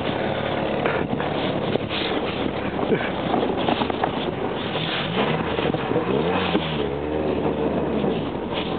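Off-road 4x4 engine running with a steady drone, revving up and back down a little past the middle.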